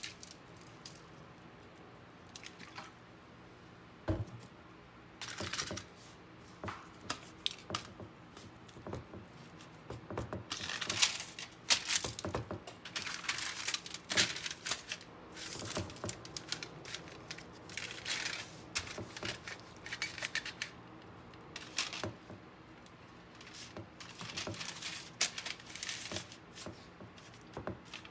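Aluminium foil lining a baking dish crinkling and rustling in irregular bursts as raw ribeye steaks are handled and turned in their marinade, with a few sharp clicks. A faint steady hum runs underneath.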